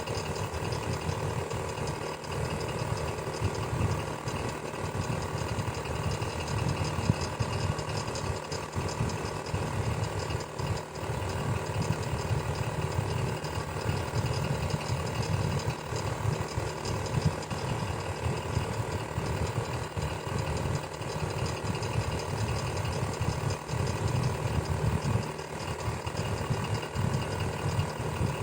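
Electric fan running steadily: a continuous low motor hum with a fine rattling flutter and a few faint steady tones above it.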